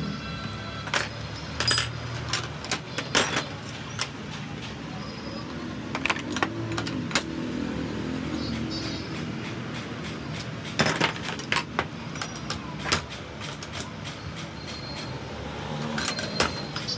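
Metal-on-metal clinks and clicks as a Royal Enfield coil-spring shock absorber is worked with a spanner and handled in a spring compressor. They come in irregular clusters, over a steady low hum of traffic.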